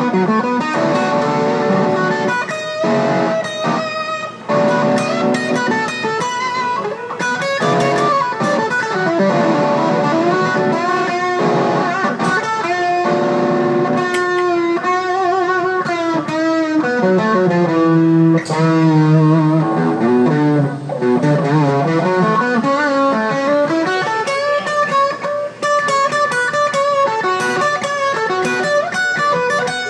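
Electric guitar playing lead licks in B minor, with notes bent up and held and wavering with vibrato, including slow bends up and back down about two-thirds of the way through.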